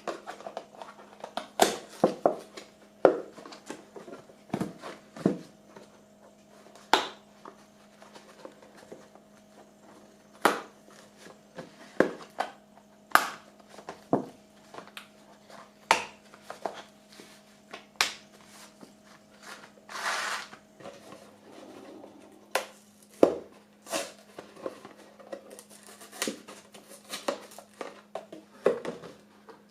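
Scattered knocks and clicks of household items being handled and set down, with a rustle lasting about a second about two-thirds of the way through, over a steady low hum.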